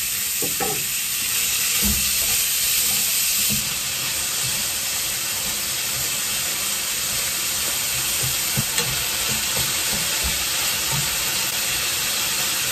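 Thin-sliced pork sizzling in a hot frying pan, a steady hiss, while it is stirred with long cooking chopsticks that knock and scrape against the pan now and then.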